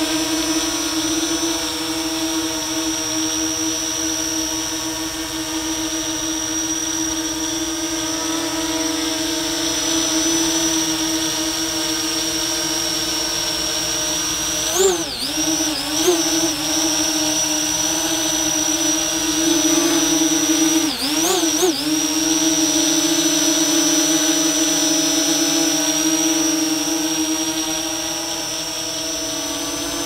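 Parrot ANAFI quadcopter drone's propellers and motors hovering with a steady high-pitched whine. About midway the pitch wavers briefly a few times as the motors change speed.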